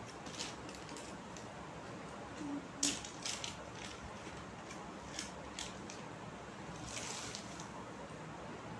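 Paper and plastic gift wrapping rustling and crinkling in short spells, several times, as a small gift is unwrapped by hand, over a steady faint hiss.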